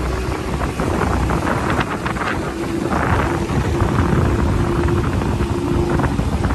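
A 20 hp outboard motor running steadily at speed, pushing an aluminium boat along, with wind buffeting the microphone.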